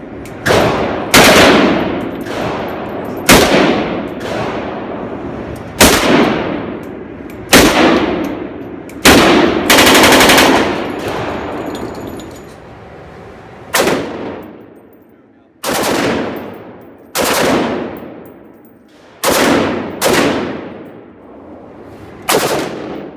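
Gunfire at a shooting range: about a dozen single shots or short bursts, one to two seconds apart, each with a long echoing tail. Around ten seconds in comes one longer burst of rapid fire.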